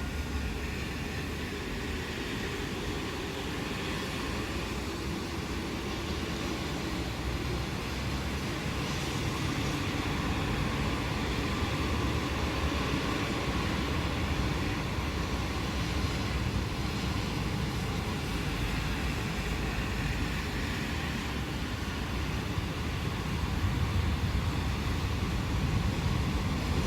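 Steady rain falling in a thunderstorm, with a low continuous rumble underneath that grows a little louder near the end.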